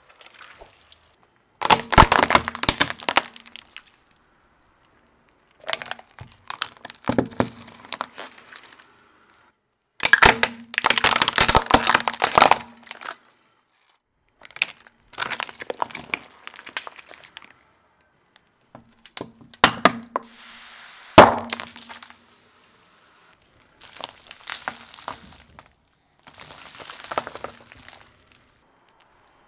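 A car tyre rolling over and crushing one object after another, including plastic slime pots and Kinder Surprise eggs. About seven bursts of cracking, crunching and breaking, each a second or three long, are cut apart by short silences. The loudest sharp crack comes about two-thirds of the way through.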